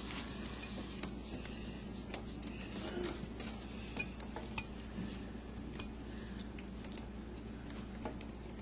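Sparse small metallic clicks and ticks of a tiny Phillips screwdriver and screw being worked into a laptop screen's hinge bracket, over a faint steady hum.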